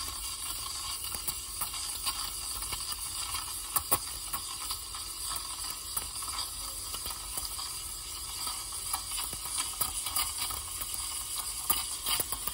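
Robo espresso machine's steam wand steaming milk in a stainless steel pitcher, its tip held just below the milk's surface: a steady hiss with scattered faint ticks. This is the 'kissing' sound of air being drawn in as the milk is textured into thick, cream-like microfoam.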